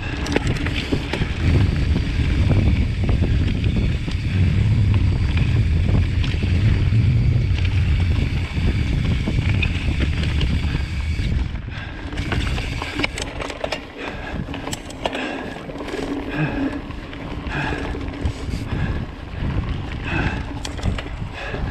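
Mountain bike rolling along a dirt forest singletrack, with wind buffeting the microphone and tyre noise. About halfway through the low rumble eases and the bike clatters and rattles more over a rockier stretch of trail.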